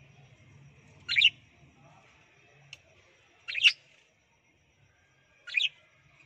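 Budgerigars giving three short chirps about two seconds apart.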